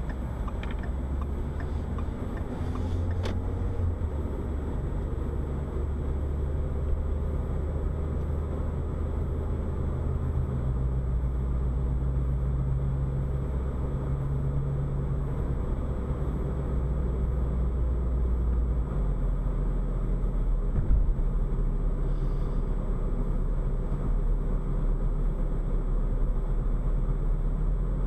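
Car driving along a road, heard from inside the cabin: a steady low engine and road rumble whose pitch shifts a couple of times as the speed changes, with one short thump about three quarters of the way through.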